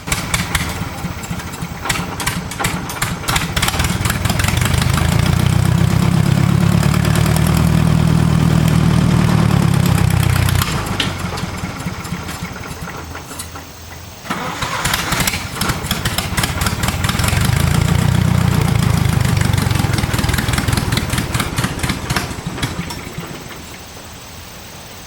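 John Deere 2010 tractor engine running, growing louder twice with a sharp drop in the middle.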